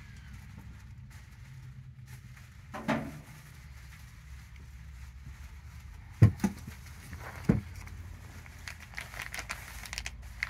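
Plastic zip-top bag crinkling and crackling in the hands near the end. A few dull thumps come before it, the loudest two in the middle.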